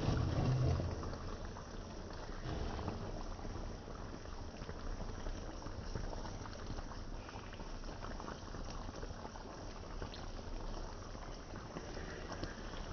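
Beef and broccoli in a thick sauce simmering in a pan, with steady bubbling and popping as the sauce reduces and thickens. A low thump about half a second in.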